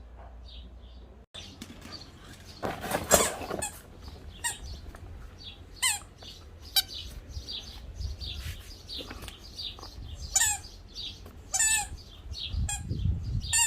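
A pet's high-pitched whistling squeaks, repeated many times as short, mostly falling calls, with a brief loud rustling burst about three seconds in.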